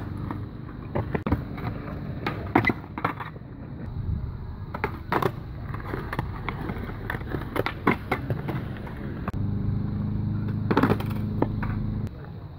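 Skateboard urethane wheels rolling on smooth concrete, broken by repeated sharp clacks of the deck popping off the tail and slapping down during flatground trick attempts. Near the end a louder steady rolling rumble builds and then cuts off suddenly.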